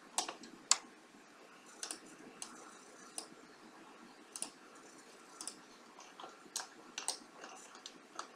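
Computer mouse button clicks: single sharp clicks at irregular intervals, about ten in all, over faint room hiss.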